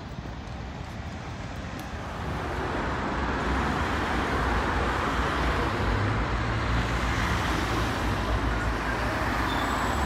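Road traffic on a busy city street: cars, vans and a city bus passing, with engine and tyre noise that grows louder about two seconds in and holds steady.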